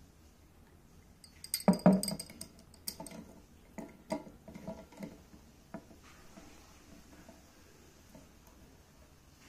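Metal corkscrew clinking and clicking against a glass wine bottle as it is fitted over the neck and worked into the cork: a quick run of sharp clinks about one and a half to three seconds in, then scattered lighter clicks.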